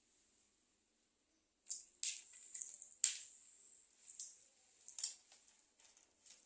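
A small cat toy jingling and rattling in quick irregular shakes and clicks as it is batted about. It starts a little under two seconds in, after a near-silent start.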